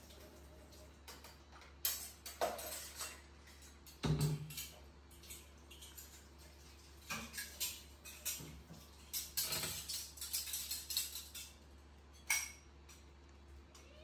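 A pet macaque eating a piece of fruit: irregular bursts of small clicks, smacks and crunches, with one duller thump about four seconds in.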